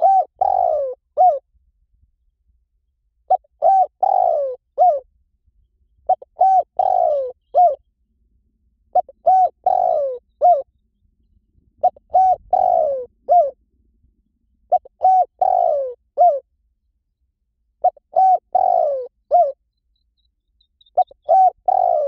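Spotted dove cooing: the same three-part phrase (a short coo, a longer falling coo and a short closing coo) repeats about every three seconds with silence between. It is a call track played to lure wild spotted doves in.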